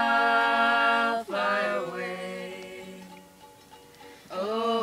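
A small group of women's and a man's voices singing a gospel hymn together to ukulele accompaniment: a long held note at the start, a short sung phrase, then the sound dies away before the next line comes in near the end.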